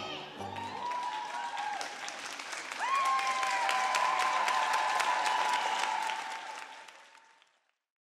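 Audience applauding and cheering at the end of a floor routine, growing louder about three seconds in, then fading out near the end.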